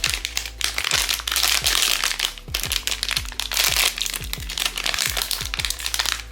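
Plastic packaging crinkling and crackling as a blind-box figure's wrapper is handled and opened, over background music with a steady beat.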